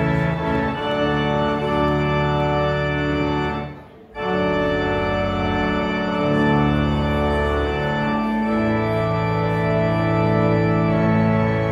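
Organ playing slow, held chords, a closing voluntary after the benediction. The music stops briefly about four seconds in, then carries on with sustained chords.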